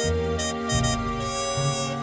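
Background instrumental music with sustained notes over a changing bass line.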